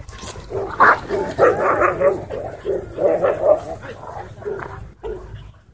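Dogs barking and yipping as they chase and play, a string of quick calls that rise and fall in pitch, strongest from about a second in and tailing off near the end.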